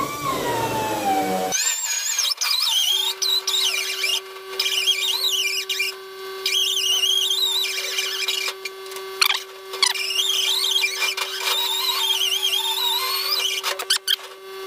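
Die grinder with a small burr enlarging a hole in a thin steel plate, starting about a second and a half in: a steady motor whine under a high, wavering screech of the burr cutting the metal, which drops out briefly a few times.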